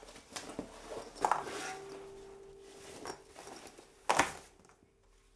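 Meinl steel tongue drum handled as it comes out of its padded bag: rustling fabric, and a knock about a second in that sets the steel ringing in one steady note for about a second and a half. A sharper, louder knock follows about four seconds in.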